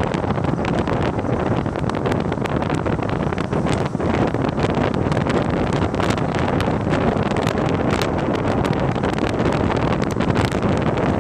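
Wind buffeting the microphone, a steady rumble with frequent small crackles, over the hum of city traffic.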